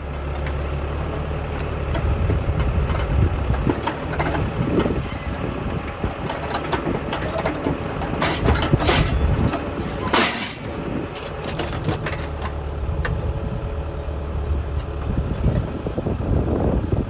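John Deere 5520 tractor's diesel engine running steadily under loader work, louder from about two seconds in. Scattered knocks and clatter of logs sound over it, heaviest a little past the middle.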